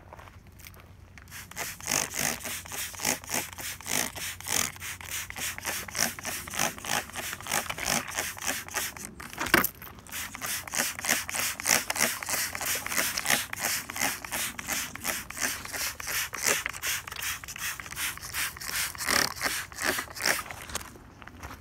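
Hand trigger spray bottle pumped again and again, each pull giving a quick hissing squirt of insecticide onto the branches and trunk, about three squirts a second, with a short break about nine seconds in.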